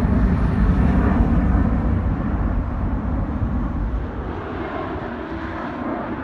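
Boeing 767 jet airliner climbing away at takeoff thrust, a steady deep engine rumble that fades as it recedes. About four seconds in it gives way to a quieter jet sound with a faint steady whine from the next departing airliner.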